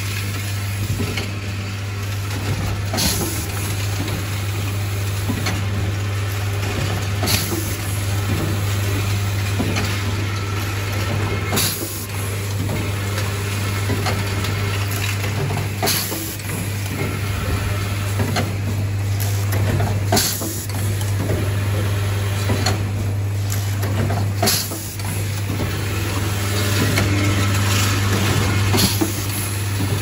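YX-CS35 automatic screw assembly machine for plastic corner connectors running its cycle. A steady low hum carries clicks and clatter of its pneumatic mechanisms. A short sharp hiss of air or clack comes about every four seconds, once per cycle.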